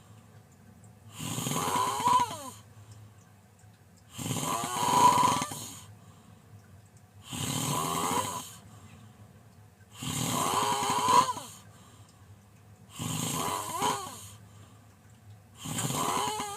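A person snoring loudly, with one long snore about every three seconds, six in all, and quiet breathing gaps between them.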